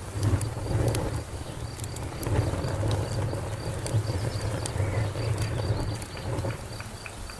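Wood fire burning with a steady low rumble and scattered sharp crackles and pops. A faint insect chirps in an even rhythm behind it.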